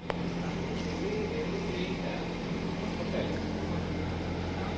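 Steady mechanical hum of poultry-farm machinery, with a constant low drone and even hiss throughout, and a few faint wavering voice-like calls over it.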